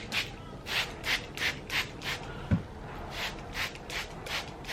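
Hands rubbing thick, creamy deep conditioner through wet curly hair: a rhythmic swishing of about three strokes a second, with one low thump about halfway through.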